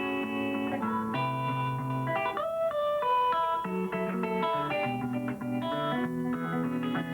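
Guitar picked in the Muhlenberg County thumbpicking style, with a melody line played over lower bass notes.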